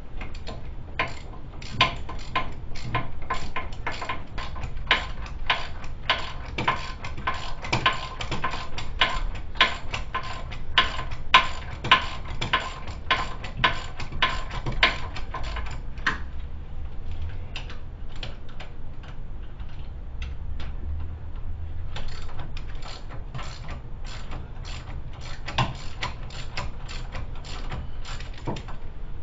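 Hand ratchet wrench clicking in quick runs as the hub-to-steering-knuckle bolts of a new front wheel hub bearing are run in, with a pause of a few seconds in the middle.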